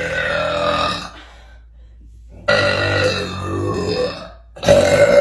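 A girl burping: three long, drawn-out burps, the first ending about a second in, the second lasting nearly two seconds, and the third starting near the end.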